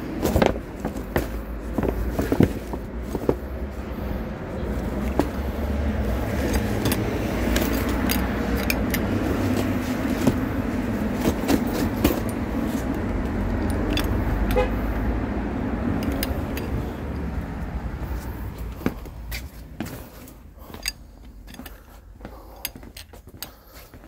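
A motor vehicle's steady running rumble with scattered clicks and rattles. The rumble dies away about three-quarters of the way through, leaving only light clicks.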